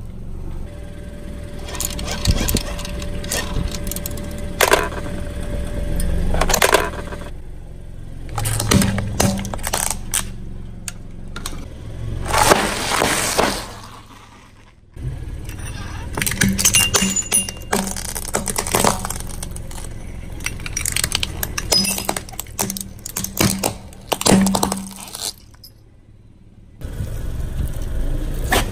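Objects cracking and crunching under a car tyre as it rolls over them: a run of sharp cracks and breaking sounds with some clinking, in several short takes that cut off suddenly between them.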